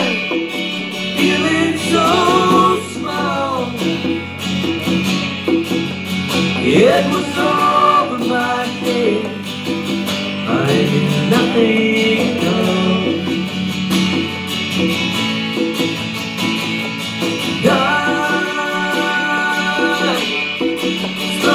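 Live acoustic guitar strummed behind a male singing voice, with hand-played conga drums keeping the beat.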